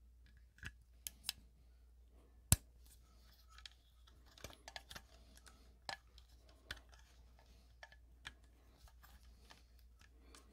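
Faint clicks and light rustling of wires being worked into a Wago lever connector by hand, with one sharper click about two and a half seconds in.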